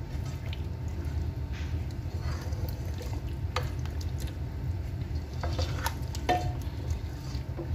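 Silicone spatula stirring a thick, wet mix of meat chunks, tomatoes and chopped green chillies in an aluminium pot, with a few light clicks of the spatula against the pot. A steady low hum runs underneath.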